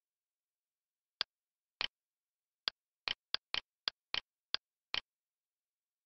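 Computer mouse clicks: about ten short, sharp clicks, irregularly spaced, several heard as a quick double click of press and release, with dead silence between them.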